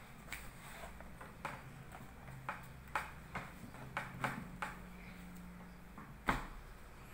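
A run of light, irregular clicks and taps, about a dozen, with a sharper, louder one about six seconds in.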